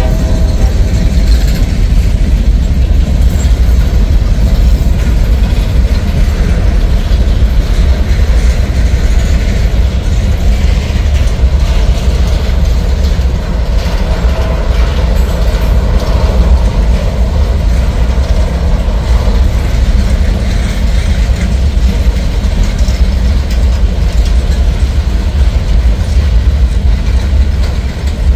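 Freight train tank cars, boxcars and a covered hopper rolling past close by: a loud, steady rumble of steel wheels on the rails.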